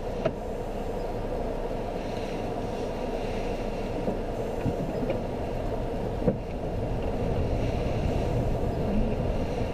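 In-cabin sound of a 2015 Jeep Renegade Trailhawk crawling along a muddy, rutted dirt trail: a steady low drone of engine and tyres, with a few short knocks from the body and suspension over bumps. The drone grows slightly louder in the last few seconds.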